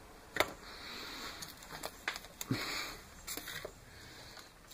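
Scotch packaging tape being pulled and handled: scattered light taps and crackling rustles, with short hissing tears of tape about a second in and again near three seconds.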